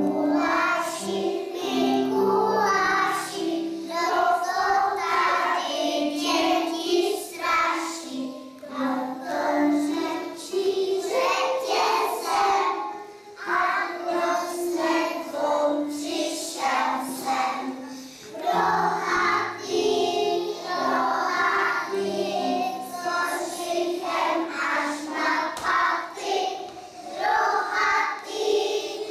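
A group of young children singing a song together, with short breaks between phrases.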